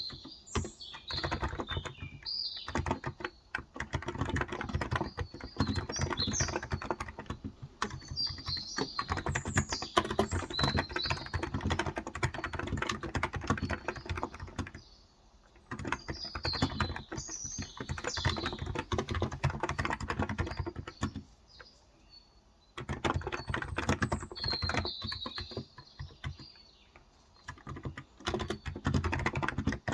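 Steady, quick typing on a Cox Endeavor electrostatic-capacitive tenkeyless keyboard with light 35 g keys, in runs of key clicks broken by a few short pauses, about halfway and two-thirds through. Small birds chirp throughout.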